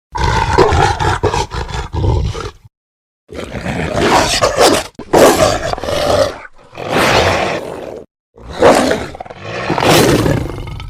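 Werewolf sound effects: a run of about five monstrous growls and roars with short breaks between them. The first is a rasping growl, and the last fades out.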